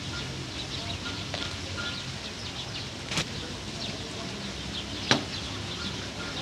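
Two sharp knocks, the second louder and about two seconds after the first, over a steady background with faint bird chirps.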